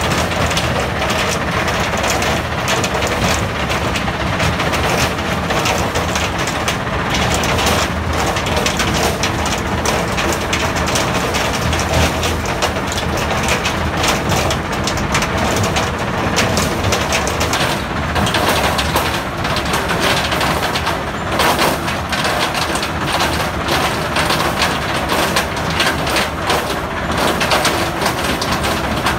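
Mobile crushing and screening plant making riprap: a constant clatter and crack of broken stone tumbling through the screen, along the conveyors and onto the pile, over the steady running of the machines' diesel engines.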